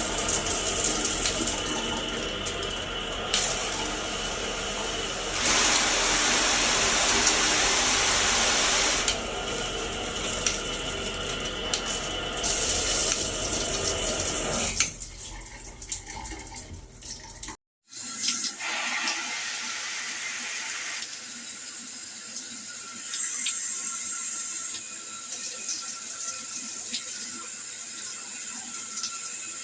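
Water spraying from a HOPOPRO multi-mode shower head in a steady hiss, louder for a few seconds around six seconds in. It breaks off abruptly about two-thirds of the way through, then a quieter spray continues.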